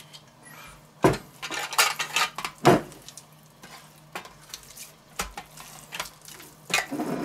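Raw pork loin being rubbed with olive oil by hand and turned in a stainless steel roasting pan: the meat and hands knock and scrape against the metal pan in irregular clunks, the two loudest about a second and two and a half seconds in.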